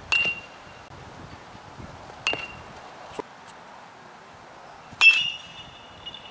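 Baseball bat hitting tossed baseballs in batting practice: three sharp cracks about two and a half seconds apart, each with a short ringing ping, the last the loudest.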